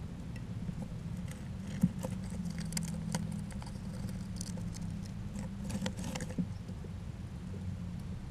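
Small rodent feeding at a pumpkin feeder: irregular little clicks and scratches of gnawing and scrabbling, with one sharper click about two seconds in. A steady low hum runs underneath.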